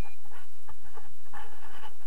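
Wind buffeting the camera's microphone, with scratchy rustling and handling noise and a louder gust of hiss about one and a half seconds in.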